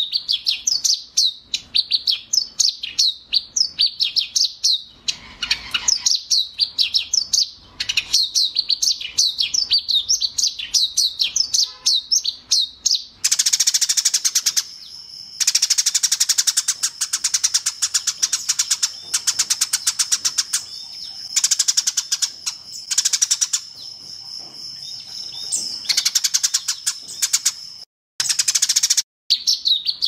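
Sparrows chirping. A fast run of short repeated chirps comes first, and about halfway through it gives way to a denser, buzzier rapid chatter in long bursts with brief breaks.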